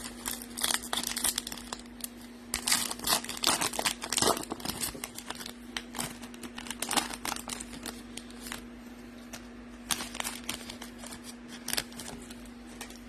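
A trading-card pack's foil wrapper being torn open and crinkled, followed by sparser crackles as the cards are handled. A steady low hum runs underneath.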